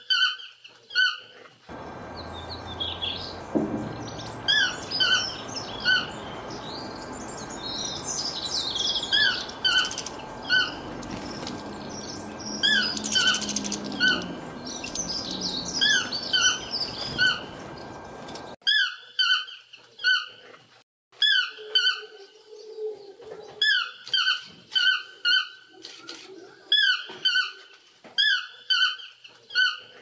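A toucan calling: one short, pitched call note repeated again and again in quick runs of two or three. For roughly the first two-thirds, other birds chirp over a steady forest hiss; after that the toucan's notes stand almost alone.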